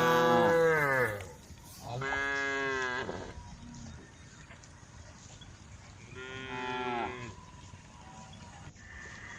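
Cows mooing: three long calls, each sliding down in pitch at its end. The first, at the start, is the loudest, and the second follows about two seconds in. After a pause, a softer third comes about six seconds in.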